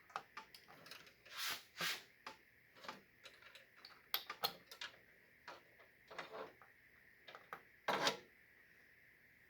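Irregular small clicks and rustles of a case fan's cable being handled and its plastic connector pushed onto a motherboard fan header inside a computer case, with a few louder rustles about a second and a half in, around four seconds, and near the end.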